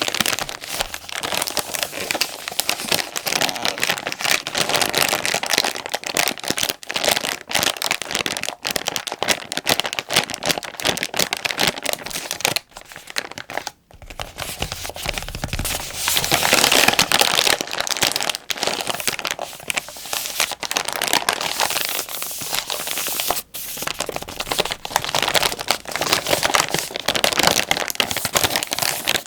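Plastic wet-wipes pack being crinkled, a dense run of crackling with a brief pause about halfway through.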